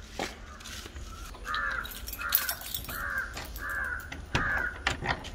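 A crow cawing over and over, about five caws evenly spaced under a second apart from about a second and a half in. Near the end a metal door chain clinks as it is handled.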